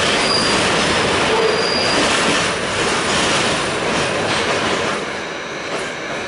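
Pullman-Standard R46 subway car running along the track, heard from inside the car: a steady loud rush and rumble of wheels and running gear, with two short high-pitched squeals near the start. The noise eases slightly near the end.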